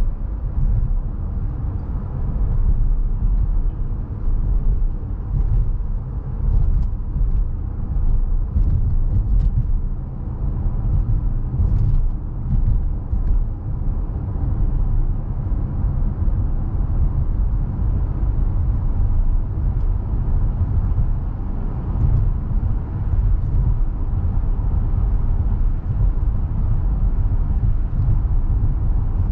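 Cabin noise of a 2020 Honda Pilot cruising at a steady speed: a low rumble of tyres on the road and its 3.5-litre V6. A few faint ticks come through between about six and thirteen seconds in.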